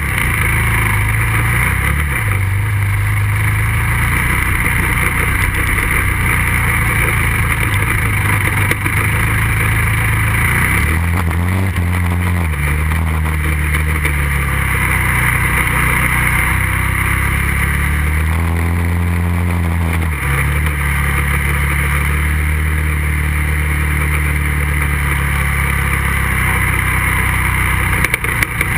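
2008 Kawasaki KFX450R quad's single-cylinder four-stroke engine, heard from a camera mounted on the quad's rear, running under throttle in sand. The engine note dips and climbs again twice, about halfway through and about two-thirds through.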